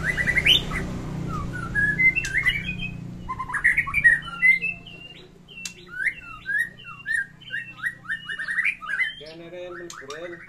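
White-rumped shama (murai batu) singing a loud, varied song of short whistled notes, harsh chattering calls and quick rattling trills, in the full, aggressive song shown in the face of a rival.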